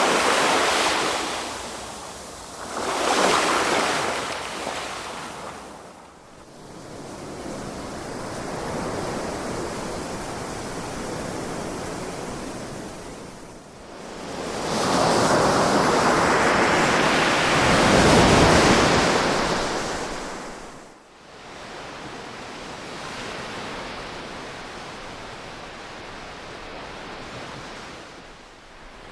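Ocean surf breaking and washing on the shore in slow swells. Two waves break early, and a bigger, longer wave builds about halfway through and falls away after about six seconds.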